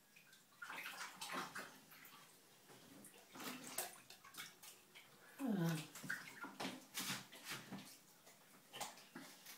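Water splashing in a bathroom sink as a hand moves through it, in irregular small splashes, with one short falling tone about halfway through.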